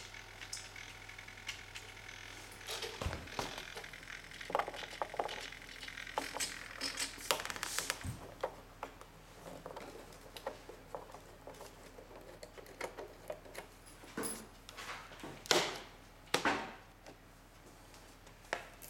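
Scattered light clicks, knocks and scrapes of hands handling a model airplane's fuselage, working a small fastener and lifting off the hatch over the battery compartment.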